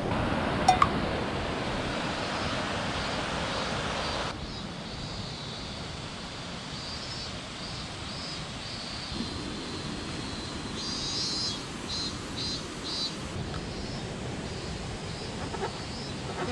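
Wind rushing over the microphone of a moving Suzuki GSX-S125 motorcycle, with low road and engine noise beneath it; the rush drops suddenly about four seconds in.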